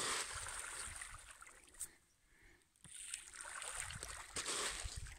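Rainbow trout splashing at the pond surface as they feed: two stretches of splashing, the second starting about three seconds in after a short lull.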